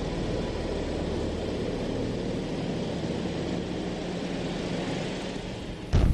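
Steady drone of engines running, then a sudden loud, heavy bang near the end.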